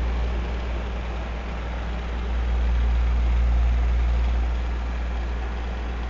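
Old electric fan running: a steady low motor hum under a rushing of air, swelling a little louder for a couple of seconds midway.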